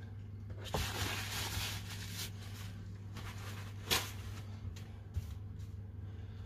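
A steady low hum with faint rustling handling noise and a sharp click about four seconds in.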